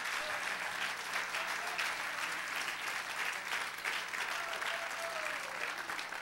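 A church congregation applauding, many hands clapping steadily.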